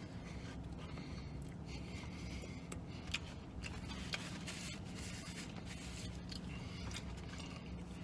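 Chewing a mouthful of McRib sandwich while handling its cardboard box: scraping and rubbing of cardboard, with two sharper clicks about three and four seconds in, over a low steady hum in the truck cab.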